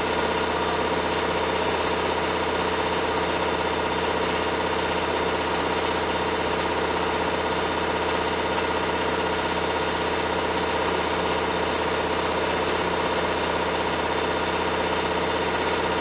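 Hoover Dynamic 1400 front-loading washing machine running, its drum turning with a steady motor hum and whine that holds at one level.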